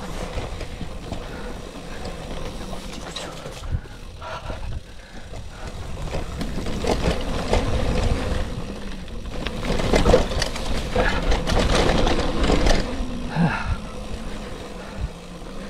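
Gravel bike rolling over a gravel road: tyres crunching and the bike rattling over a steady low rumble. The clatter grows louder and busier through the middle of the stretch.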